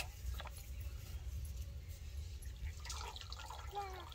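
Water splashing and dripping as a wet duck is worked by hand in a steel bowl of water and lifted out of it, with one sharp click right at the start over a steady low rumble.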